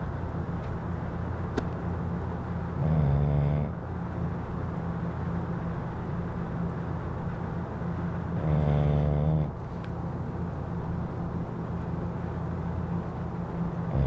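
A sleeping dog snoring loud: two drawn-out snores about a second long, roughly five and a half seconds apart, over a steady low hum.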